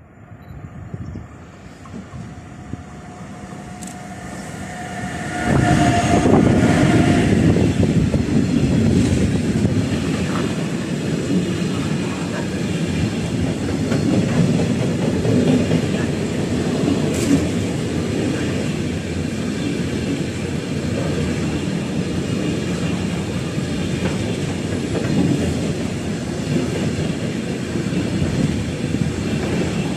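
Freight train approaching, growing steadily louder, then passing close at speed from about five seconds in. The train is hauling double-deck car-transporter wagons, and they make a steady loud rumble with a rattling clatter of wheels over the rail joints.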